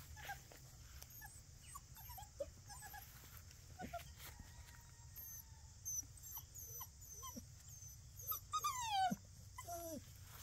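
Young puppies giving small squeaks and whimpers as they play, with one louder whine falling in pitch near the end.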